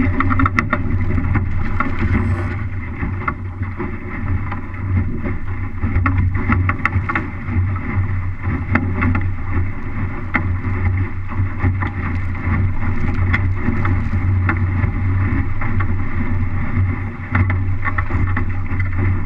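Water rushing and slapping along the hull of an MC scow under sail, with wind noise on the microphone and frequent short knocks and splashes.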